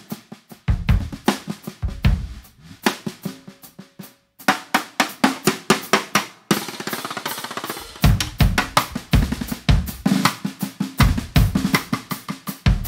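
Snare drum played with sticks in fast strokes and short fills, its head at times muted by a hand or by a stick laid across it, with low drum thuds in clusters underneath. The playing breaks off briefly a little past four seconds in and turns denser after about six and a half seconds.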